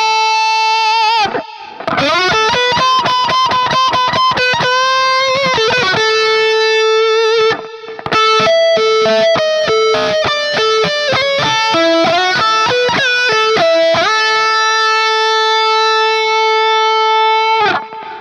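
Electric lead guitar played on a Gibson Les Paul goldtop: sustained, singing notes with wide vibrato and string bends, a run of quick short notes in the middle, and a long held note with vibrato near the end that cuts off.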